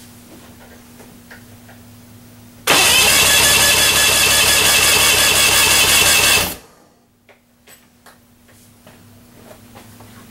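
Mercury V6 outboard motor being cranked over on its electric starter, spark plugs out, for about four seconds during a compression test. The cranking starts suddenly nearly three seconds in and cuts off abruptly.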